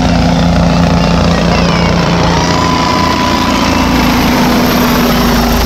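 Helicopter flying low overhead: a steady drone of engine and rotor with a constant low hum.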